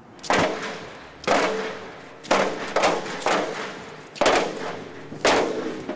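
Loud, sharp percussive hits in a slow, regular rhythm, about one a second with some doubled, each ringing out briefly, like heavy drum beats or stamping boots.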